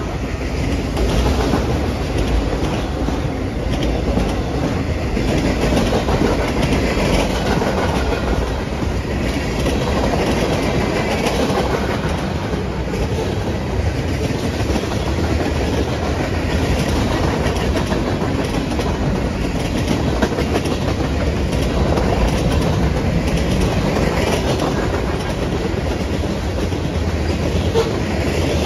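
Cars of a mixed freight train rolling past: a steady, unbroken rolling noise of steel wheels on the rails.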